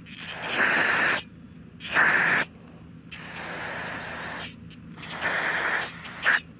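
Pressurised spray hissing in five short bursts onto motorcycle brake caliper parts being cleaned, the middle burst longer and softer and the last one very brief.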